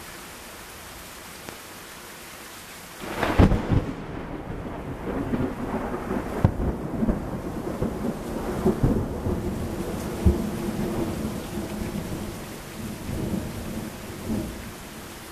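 Thunder over steady heavy rain: a sudden loud crack about three seconds in opens a long rolling rumble, broken by several further cracks, that fades near the end.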